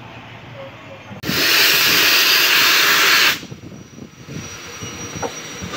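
Loud hiss of steam from a steam locomotive setting off, with the cylinder drain cocks blowing. It starts abruptly about a second in and cuts off about two seconds later, leaving quieter steam noise and a short puff near the end.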